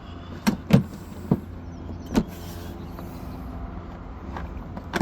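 The RV's propane tank compartment cover being put back on and latched: a few sharp plastic knocks and clicks at uneven intervals, the loudest pair close together about half a second in, over a steady low hum.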